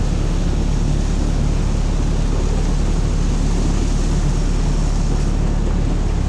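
Sherp amphibious ATV's diesel engine running steadily, a loud low hum heard from inside its cab.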